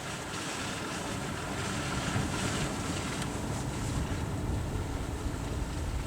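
Car driving, with steady engine and road noise heard from inside the cabin.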